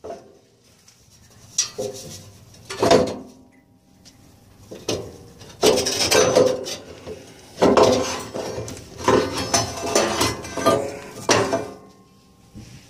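The exhaust manifold of a 2002 Ford E-350's 5.4 V8 is worked free past the exhaust pipe: irregular metal clanks and scrapes with a ringing note, two short bursts and then longer runs of clatter from about five seconds in.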